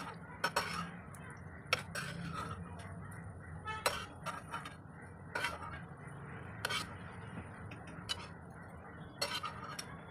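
Metal spoon clinking against a wire skimmer and the frying pan about a dozen times, at irregular intervals, while fried bread slices are scooped out of hot ghee, over a low steady hiss.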